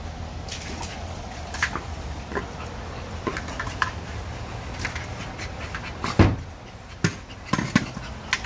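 A dog panting as it noses a rubber ball around, with scattered light knocks and one loud thump about six seconds in.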